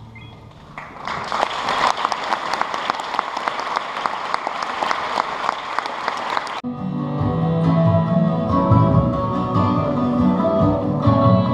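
Audience applauding for about six seconds, then it cuts off abruptly and instrumental music takes over.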